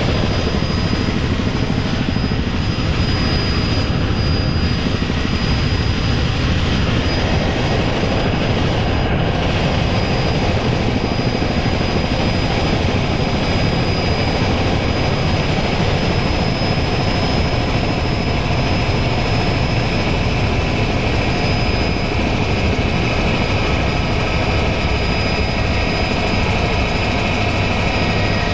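Helicopter in flight heard from inside the cabin: loud, steady engine and rotor noise with a thin, steady high whine over it.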